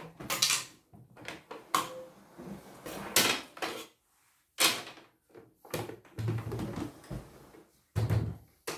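Plastic housing panels of a CNY E900 embroidery machine being pulled off, handled and set down: a string of sharp plastic clacks and knocks with rubbing and scraping in between.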